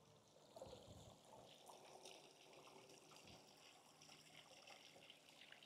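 Near silence with a faint trickle of water spilling from a rock waterfall into a swimming pool.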